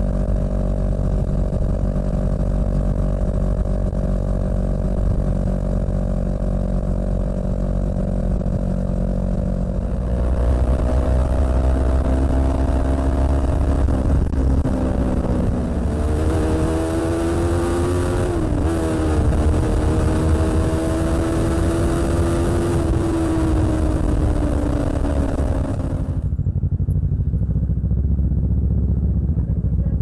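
Kawasaki Ninja 650's parallel-twin engine through an Arrow aftermarket exhaust, heard from the rider's seat. It runs at a steady note, then from about a third of the way in it pulls harder and louder, with its pitch wavering and dipping twice and wind rush on the microphone. Near the end the wind drops away and it settles to a lower, steady note.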